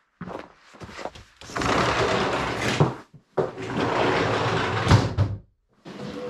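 A sliding entrance door rumbling along its track twice, open and then shut, each slide of a second or two ending in a sharp knock against its stop.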